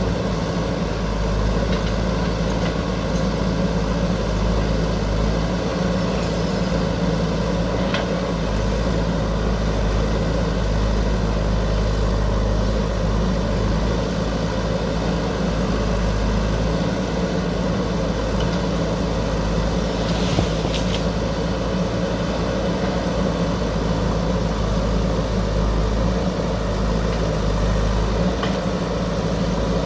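Backhoe loader's diesel engine running steadily, with a few brief knocks, one about eight seconds in and a short cluster about twenty seconds in.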